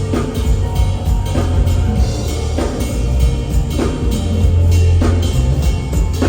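Band music with a drum kit: a snare stroke about every 1.2 seconds over a heavy, steady bass.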